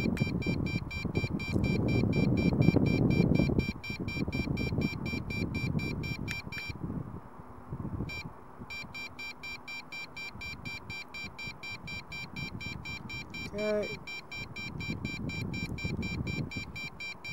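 A rapid, even electronic pulsing at a high pitch, about six pulses a second, which stops briefly about seven seconds in. A low rumble sits under it over the first few seconds.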